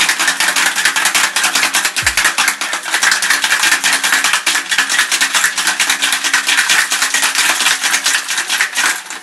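Metal cocktail shaker shaken hard with three ice cubes: a rapid, continuous rattle of ice against the tin, which stops just before the end. This is the shake with ice that chills the drink.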